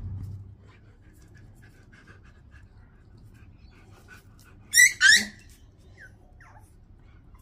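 Pomeranian puppy giving two sharp, high-pitched yaps in quick succession about five seconds in, followed by a couple of faint squeaky whimpers.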